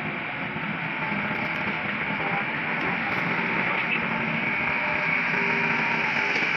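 Excavators' diesel engines running steadily under load while they dig.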